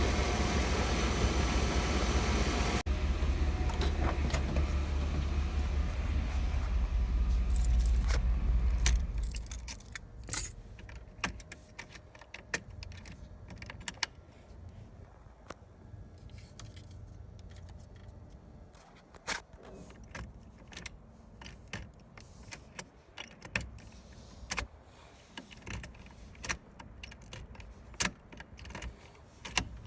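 1990 Chevrolet Suburban engine idling, then shut off about nine seconds in. Afterwards a run of light clicks and jingling keys.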